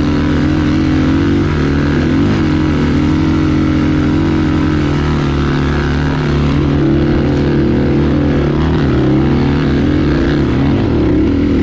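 Single-cylinder four-stroke dirt bike engine running under way on a trail ride, its note holding fairly steady with small dips and rises in pitch.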